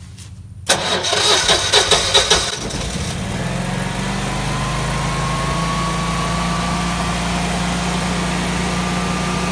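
Generac 22 kW home standby generator's engine starting on its own when the utility power is cut. It cranks with a few uneven loud pulses less than a second in, catches, and settles into a steady run at governed speed.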